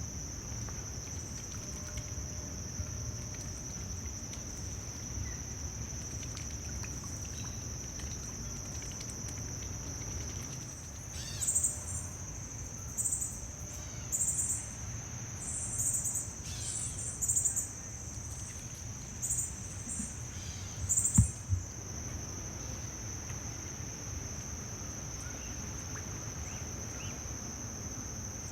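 Steady high-pitched drone of crickets or other insects, with a run of about eight short, very high chirps from a bird between about 11 and 21 seconds in.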